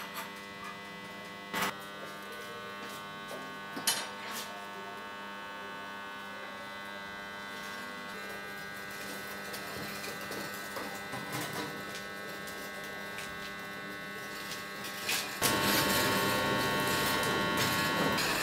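Steady electrical hum with several held tones from a working tile-firing kiln, broken by two sharp clicks in the first few seconds. About fifteen seconds in, a louder, noisier sound starts suddenly and carries on.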